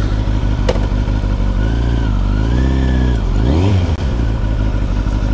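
Motorcycle engine running on a test ride, its revs climbing and dropping several times in the middle, with a single sharp click under a second in.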